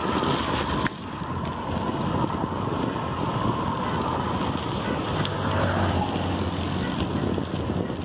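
Wind buffeting a phone's microphone while riding a bicycle, a steady rushing noise, with a deeper low rumble swelling about five seconds in.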